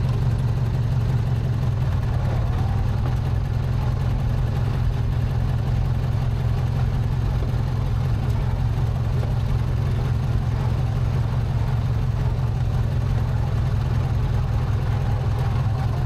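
Racing lawn mower's Briggs & Stratton twin-cylinder engine running steadily as the mower drives along, a constant low hum with no revving.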